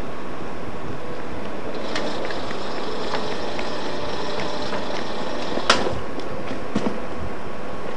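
Distant ICE train running in over the station's curved tracks: a steady rumble, with a faint high whine from about two seconds in. A sharp click comes just before six seconds, and a couple of smaller ones a second later.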